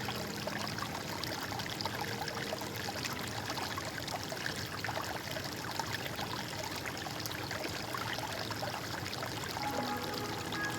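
Water in a stream flowing and trickling steadily, with soft background music faintly heard near the start and returning near the end.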